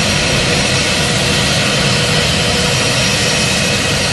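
Jet engines of an Airbus A320 airliner running at taxi power as it rolls slowly along the apron: a steady, loud rush with a faint, thin whine over it.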